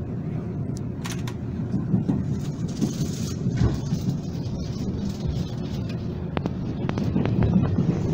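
Inside a Taiwan Railways express carriage as the train pulls into the station: a steady low rumble of wheels on track, with scattered clicks and knocks. A brief hiss comes about three seconds in.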